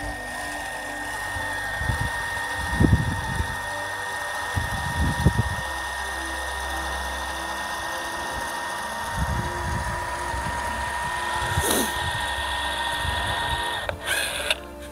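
Milwaukee M12 cordless caulking gun's motor whining steadily as it pushes out a bead of glass-bonding adhesive. It stops near the end with a brief burst of noise, and a few low thumps come about 3 and 5 seconds in.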